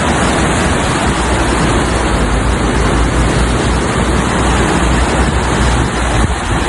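Overflowing river in flood: a loud, steady rush of fast-moving water.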